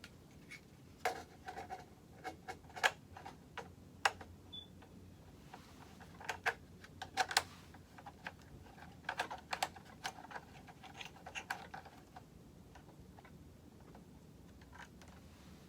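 Irregular clicks and light knocks of ring light and tripod stand parts being handled and fitted together during assembly. They come in uneven clusters and thin out near the end.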